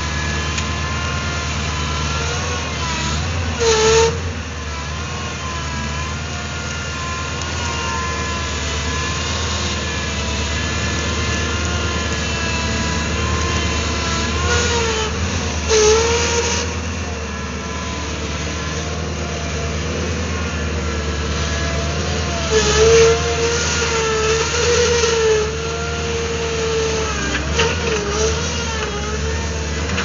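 Bobcat 722 skid steer loader's engine running steadily as it drives and pushes brush with its bucket. Several times it gets louder, with a higher wavering whine: about four seconds in, around the middle, and for a few seconds past two-thirds of the way.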